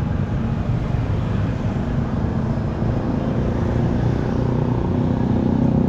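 Street noise dominated by motor vehicle engines running close by: a steady low engine hum that grows a little stronger near the end.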